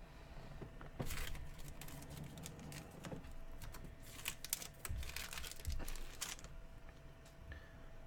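Faint rustling, crinkling and light clicks of trading cards and their packaging being handled, in scattered short bursts, busiest about one second in and again from about four to six seconds in.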